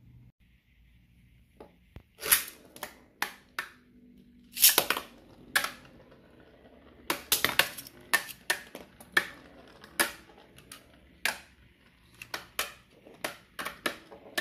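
Two Beyblade spinning tops, L Drago Destroy and Engaard, clashing against each other and the rim of a metal pan stadium: an irregular run of sharp metallic clicks and clacks that starts about two seconds in.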